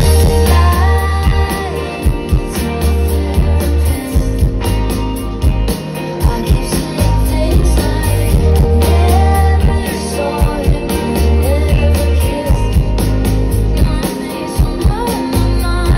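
Live pop-rock band heard through a festival sound system: heavy bass, a steady drum beat and electric guitar, with a woman singing over them.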